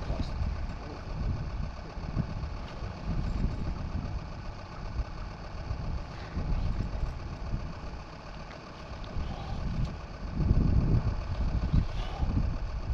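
A low, uneven rumble that rises and falls, swelling louder about ten seconds in.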